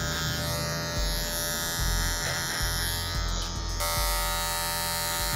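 Electric hair clippers buzzing steadily while cutting hair over a comb (clipper-over-comb), the low hum changing in strength every second or so.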